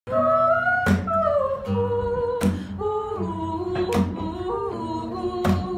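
A voice singing a slow, gliding melody to a strummed acoustic guitar, with a chord struck about every second and a half.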